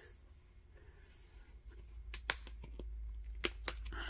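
Cardboard pages and a pull-tab of a board book being handled: soft sliding and rubbing, with a few sharp clicks about two seconds in and again about three and a half seconds in, over a low steady hum.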